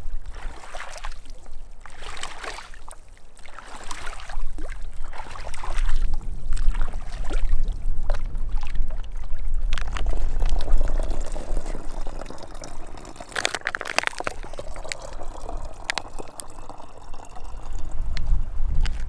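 Water pouring and trickling into a plastic water bottle as it is filled from a lake and run through a water filter, with wind rumbling on the microphone.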